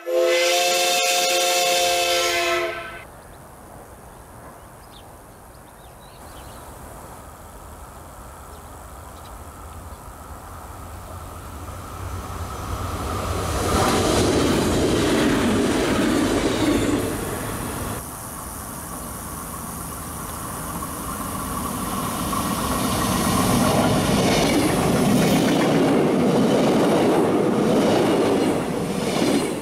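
A train horn chord sounds for the first couple of seconds. A stainless-steel electric passenger train then draws closer, growing louder for about ten seconds, and passes close by with wheel and rail noise. After a cut, a blue Fertagus double-deck electric train passes at close range in the same way.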